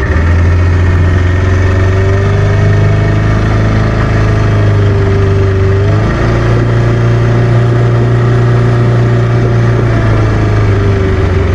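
Suzuki 15 hp outboard motor running steadily at low throttle. Its note changes about halfway through, then changes back near the end.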